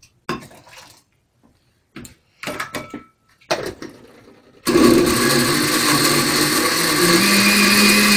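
Countertop blender with a glass jug: a few knocks as the jug and lid are handled, then about four and a half seconds in the motor starts and runs steadily, blending melon pieces with water and sugar. Its pitch rises a little about seven seconds in.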